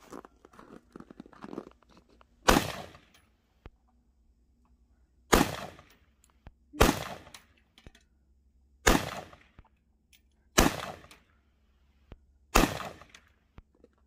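Six single gunshots fired one at a time, about one and a half to three seconds apart, each followed by a short fading echo.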